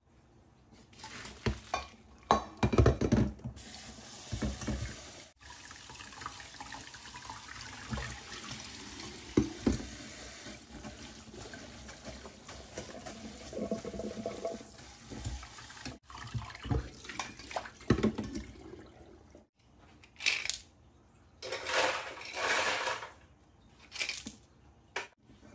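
Cooked spaghetti poured from a steel pot into a stainless-steel mesh colander in a steel sink, with clanks and splashing, then a kitchen tap running steadily onto the pasta as it is rinsed by hand. The water stops after about nineteen seconds, followed by several short rattling bursts as ice cubes are scooped onto the pasta.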